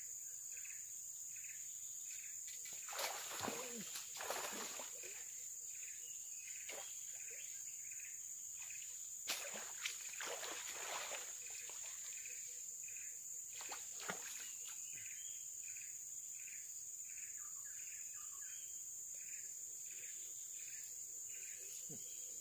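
Faint steady high-pitched drone of insects in a swamp, with a chirp repeating about twice a second. Several short splashes of water break in during the first two-thirds as a hooked snakehead is fought in and landed.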